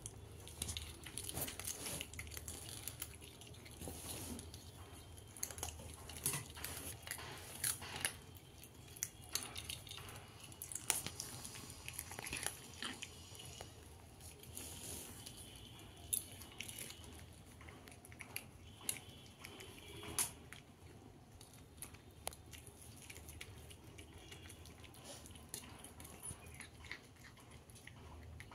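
A cat eating cooked fish off a metal plate, chewing with irregular, sharp little clicks and crunches.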